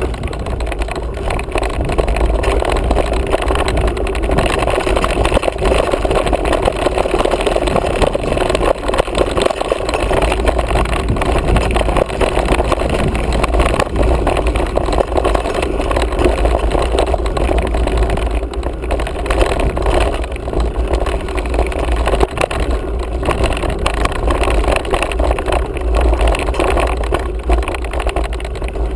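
Steady wind buffeting the microphone of a mountain bike's action camera, mixed with the rumble and small knocks of the bike rolling over a dry dirt trail.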